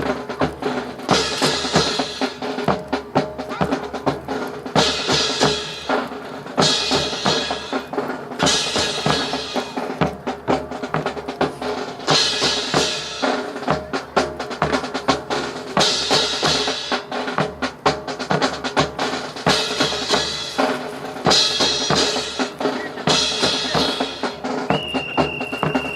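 Drum-led music with a steady beat: snare and bass drum hits, and cymbal crashes every few seconds. A steady high tone is held near the end.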